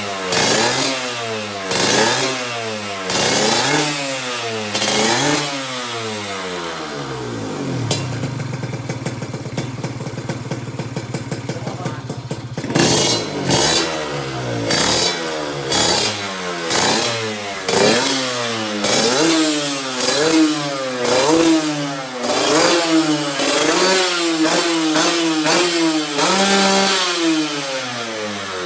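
Kawasaki KR150 two-stroke single-cylinder engine running through an aftermarket titanium performance exhaust, revved in repeated quick blips that rise and fall in pitch. It settles to a steady idle for a few seconds in the middle, then the blips resume, coming faster and closer together near the end.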